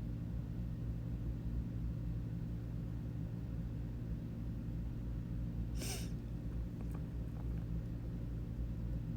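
Steady low machine hum, with a brief scrape about six seconds in.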